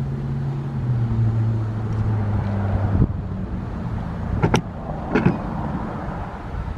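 Federal Signal Thunderbolt 1000T siren winding down at the end of its test, a low tone sinking slightly in pitch and dying out about three seconds in. A few sharp knocks follow.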